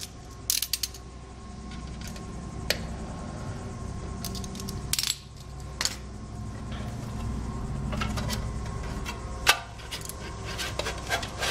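Sharp metallic clinks and clanks from a sheet-steel computer power-supply case being picked up and handled, with a cluster of clinks near the start and another near the end, and single knocks between.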